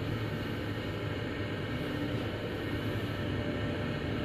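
Mitsubishi Nexiez-MR traction elevator car travelling upward, heard from inside the cab as a steady low rumble with a hiss of air.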